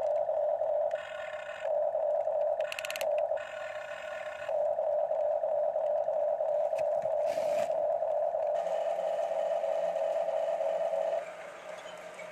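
Electric motors of a HuiNa remote-control toy excavator whining steadily as the boom and bucket move, the pitch changing briefly as different functions are worked. The whine drops to a quieter level about eleven seconds in.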